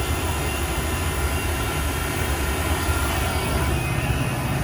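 Refrigeration vacuum pump running with a steady low hum, evacuating a refrigeration system. Its oil is turning milky from the moisture being pulled out of the wet, contaminated system.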